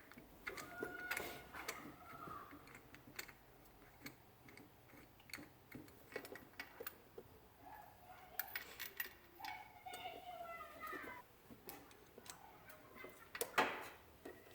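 Ratchet wrench clicking in short irregular runs as a spark plug is worked loose, with small metal-on-metal taps and a louder knock near the end.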